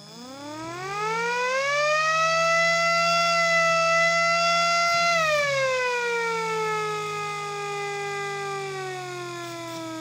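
Small MS-190 mechanical siren, its rotor spun by a Titan 380 electric motor, winding up to a steady wail within about two seconds. It holds that pitch for a few seconds, then winds down slowly, still falling at the end.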